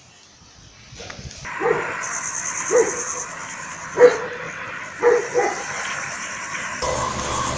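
A dog barking about five times in short single barks over a steady background hiss. The loudest bark comes about four seconds in.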